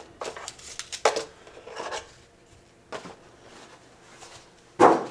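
Plastic packaging handled as an action figure is lifted out of its moulded plastic tray: scattered light rustles and clicks, then a louder knock near the end.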